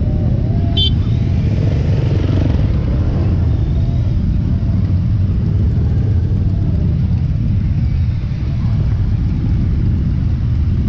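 Motorcycle engines running as a column of motorcycles rolls slowly along, heard as a steady low rumble, with a brief high beep about a second in.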